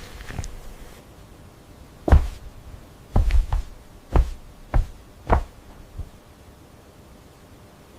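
A series of dull knocks, about seven of them over four seconds, unevenly spaced, with two in quick succession.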